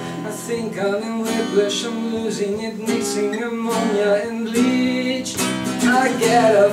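Acoustic guitar strummed in a steady rhythm, an instrumental passage of a solo song accompaniment.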